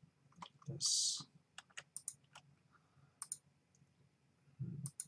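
Computer mouse and keyboard clicks: irregular, sharp single clicks, a dozen or so, scattered through the few seconds.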